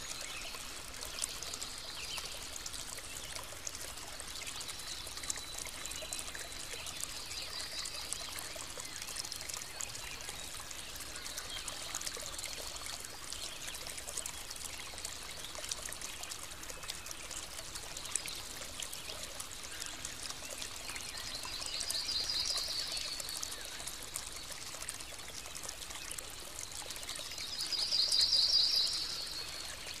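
Small forest stream trickling and splashing steadily over rocks, with birds singing: short high trills stand out over the water, one about two-thirds of the way in and a louder one near the end.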